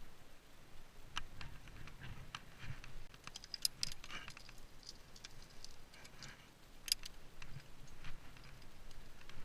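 Metal climbing hardware (carabiners and protection gear) clinking and jangling in scattered sharp clicks as the climber moves up the crack. The sharpest clinks come about three and a half and seven seconds in.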